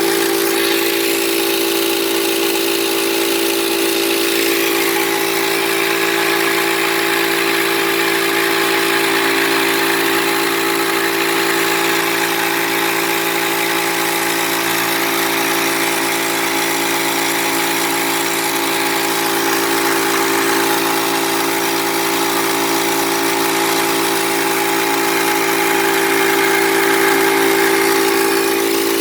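Yong Heng high-pressure PCP air compressor running steadily, a constant mechanical hum with hiss above it. The unit has been modified to run quieter.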